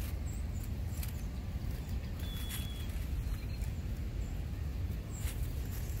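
Steady low background rumble with a few faint clicks, and one brief thin high whistle about two and a half seconds in.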